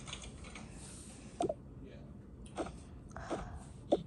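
Four short, light knocks and clicks spread over a few seconds, with a brief scrape among them: small objects being handled and set down.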